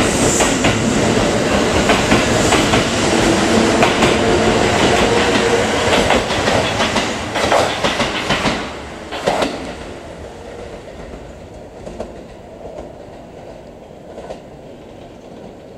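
Kintetsu 30000 series Vista Car limited express running along the platform, its wheels clattering over the rail joints under a steady hum. About eight seconds in the sound drops to a much quieter low rumble with a few faint clicks.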